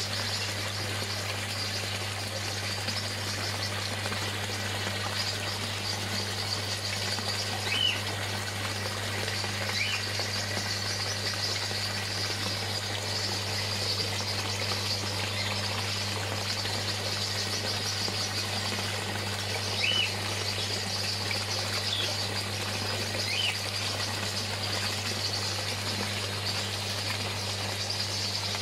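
Steady hiss of moving water over a low steady hum, with a handful of short bird chirps scattered every few seconds.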